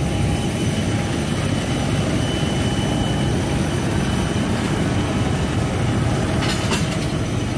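Steady jet aircraft noise on an airport apron: a constant rumble with a faint high whine running through it.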